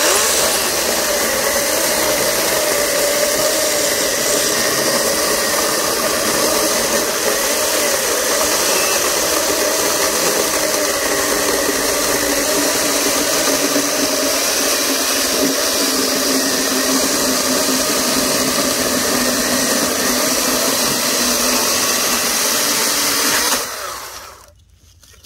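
Ridgid 18-volt cordless electric chainsaw with a 12-inch bar cutting through a knotty crotch of cherry log, the motor running steadily under heavy load for over twenty seconds. Near the end it stops and winds down.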